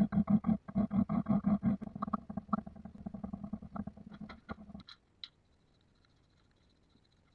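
Narrow plane cutter being honed by hand on a sharpening stone: rapid back-and-forth scraping strokes, about four a second. The strokes grow lighter and end about five seconds in.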